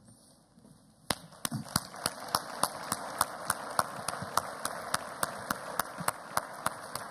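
Audience applauding, starting about a second in, with one nearby pair of hands clapping sharply and evenly, about three claps a second, above the general clapping.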